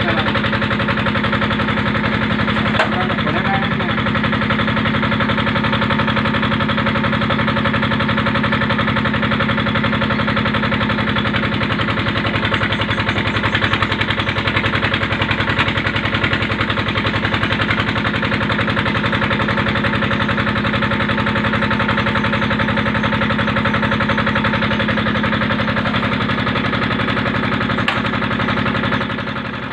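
Engine of a clay brick-making machine (molen) running steadily with a fast, even beat, dipping slightly at the very end.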